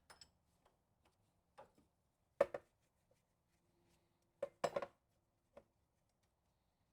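Hand tools clanking on a wheel nut: a scatter of sharp metallic knocks as the wrench is worked on the nut to break it loose, the loudest about two and a half seconds in and a quick cluster near five seconds.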